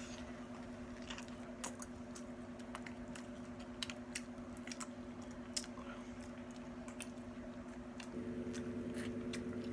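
A person biting into and chewing barbecue rib meat, with scattered short mouth clicks. A steady low hum runs underneath and gets louder about eight seconds in.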